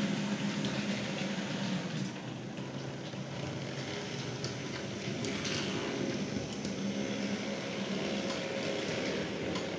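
H0-scale model trams running on the layout: a steady hum from their small electric motors and gears over rolling wheel noise, with a few light clicks.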